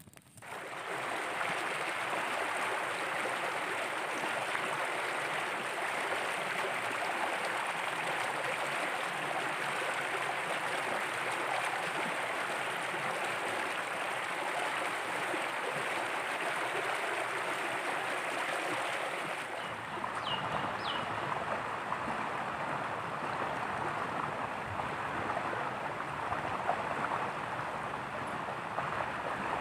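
Shallow rocky stream flowing, a steady rushing of water over stones that shifts in tone about twenty seconds in.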